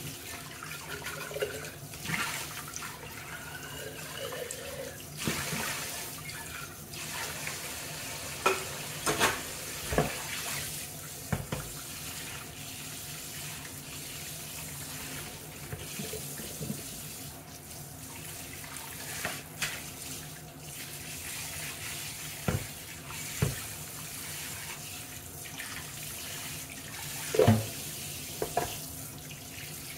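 Kitchen faucet running steadily into a stainless-steel sink while a pan and a glass are scrubbed under the stream with a sponge. A few sharp knocks and clinks come as the dishes are handled, the loudest near the end.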